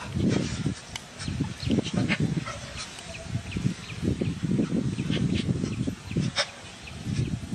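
Animal sounds: irregular low bursts with many short high chirps scattered through, and one sharp click near the end.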